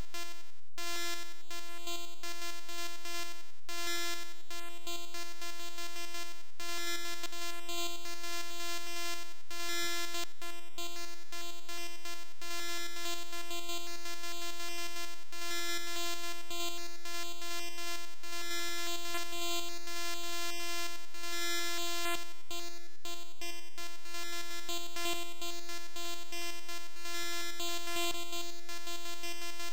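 Bytebeat: a computer-generated 8-bit tone from a one-line formula, holding one steady buzzy pitch with a dense stack of overtones. It is broken by clicks and a few brief dips at irregular moments.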